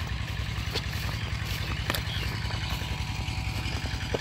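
A small engine runs steadily with a low, even chugging while driving a water pump to drain a pond. A few faint clicks sound over it.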